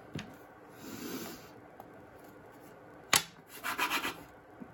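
Rubbing and scraping of pop-up bait paste being rolled into balls. There is a sharp click about three seconds in, followed by a short run of quick rubbing strokes.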